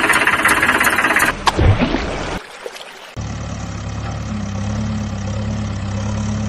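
Engine sound effect laid over the toy footage: a loud rattling engine that runs for about a second and then changes and dies away. After a short lull, a low engine starts and idles steadily.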